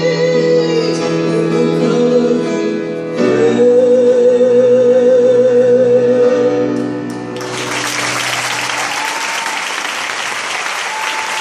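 A female singer holds two long, wavering notes over grand piano accompaniment as the song closes. About seven seconds in the music stops and the audience breaks into applause.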